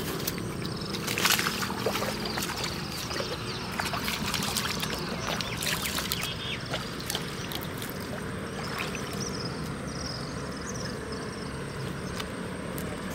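Water splashing and sloshing as a fisherman works a net in shallow river water, in irregular splashes, the loudest about a second in.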